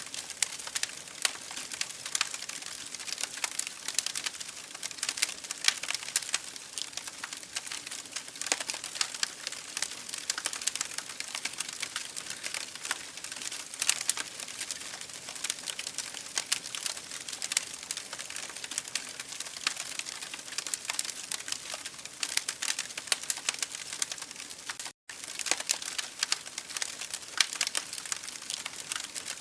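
Wood fire burning in an open fireplace: dense, irregular crackling and snapping over a soft hiss. The sound cuts out for an instant near the end.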